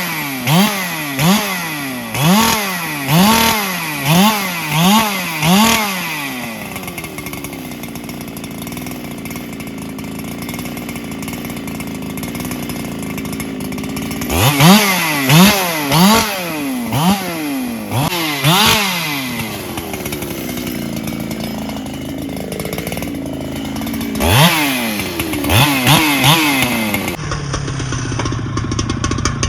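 Solo 681 chainsaw, an 80cc-class two-stroke, revved again and again in quick throttle bursts that rise and fall in pitch, in three spells, with lower, steadier running between them.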